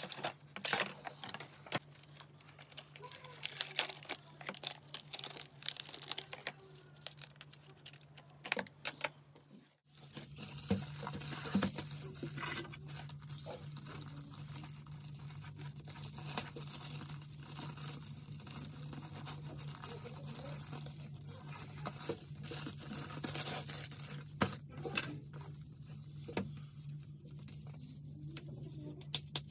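Unboxing handling sounds: sharp taps and clicks of hands on plastic and cardboard packaging. About ten seconds in, a plastic poly mailer bag is torn open and its plastic wrapping crinkles and rustles over a steady low hum.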